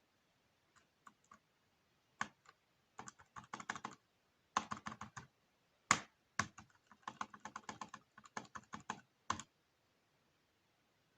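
Typing on a laptop keyboard: bursts of quick key clicks, starting about a second in and stopping near the end.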